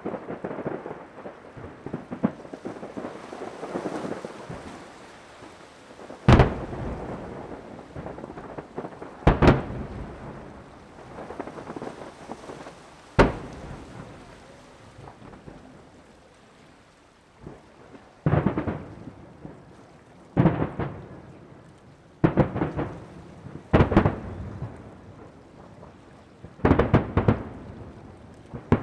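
Aerial fireworks bursting overhead: about nine loud booms a few seconds apart, each trailing off briefly, over continuous crackling, with a short quieter lull a little past the middle.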